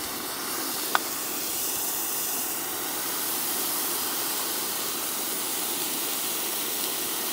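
Water poured into a hot kazan of fried meat, onion and carrots, sizzling and hissing steadily as it flashes to steam on the hot fat and metal. A short sharp click comes about a second in.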